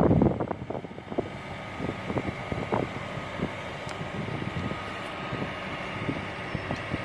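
Outdoor background noise: a steady hum with wind on the microphone, and a few faint light knocks here and there.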